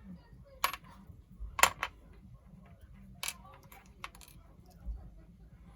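Sharp metal clicks and clacks of a lock and small picking tools being handled, about half a dozen separate taps with the loudest about a second and a half in, and a duller knock near the end.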